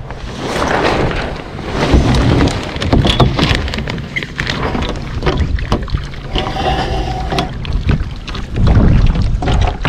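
Gusty wind buffeting the microphone, over repeated knocks and clatter from the lines and fittings being handled on the deck of a Sunfish sailboat.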